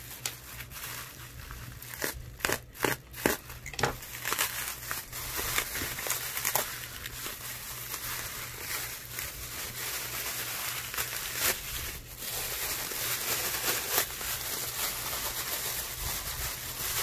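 Thin plastic bags crinkling and rustling as hands unwrap phones from them, with a run of sharp crackles a couple of seconds in.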